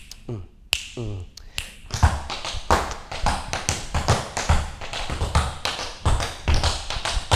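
Tap shoes striking a wooden studio floor in a dense, irregular run of taps from about a second in, dancing a swing groove.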